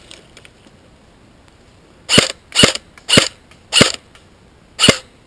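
G&G CM16 Raider DST airsoft electric rifle firing five single shots in semi-auto, each a short sharp crack, the last after a longer pause.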